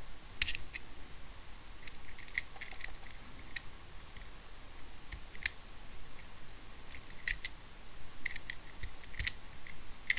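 Craft knife blade picking and scraping at the rubber seal of a small ball bearing, trying to lever it out. The blade makes scattered, irregular sharp little clicks against the bearing.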